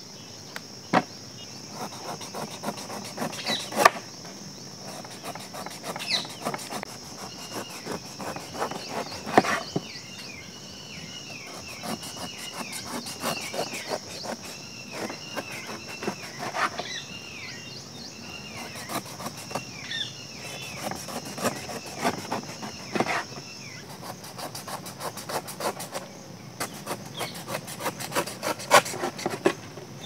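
Large knife slicing and paring the rind off a raw jackfruit on a wooden chopping board: many short cutting strokes and knocks on the board, with rubbing and scraping between them. Behind it a steady high insect drone stops about 24 s in, and a run of short falling chirps comes through the middle.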